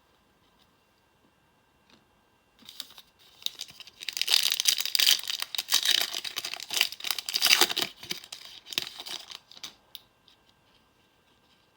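Plastic trading card pack wrapper being torn open and crinkled, starting a couple of seconds in and lasting about seven seconds, loudest in the middle.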